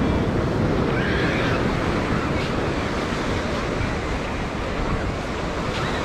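Ocean surf washing onto a sandy beach, a steady rushing noise, with wind rumbling on the microphone.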